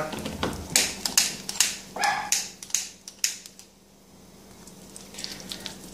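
Melting butter sizzling and popping in a hot stainless steel wok: irregular sharp pops for about three seconds that die away, leaving a faint hiss.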